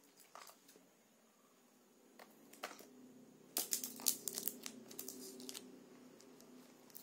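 A small parcel's packaging being handled and opened: crinkling and tearing in a run of sharp crackles, loudest a little past the middle, over a faint steady hum.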